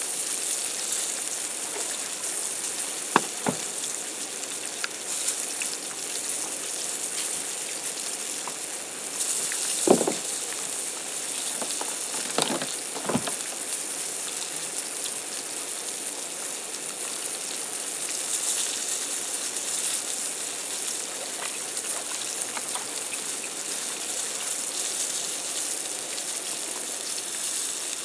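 Fish fillets dredged in seasoned flour frying in a cast iron skillet, a steady high sizzle. A few sharp knocks sound over it, about three seconds in and again around ten and thirteen seconds.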